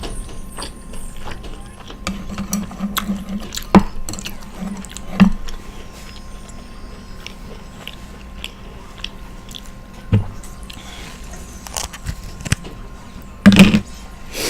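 A person chewing and biting Chinese takeout food close to the microphone, with scattered small clicks and a few louder knocks, the loudest near the end.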